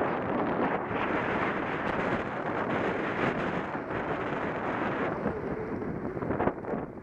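Wind buffeting a rider-mounted camera's microphone on a fast road-bike descent: a steady, gusty rush.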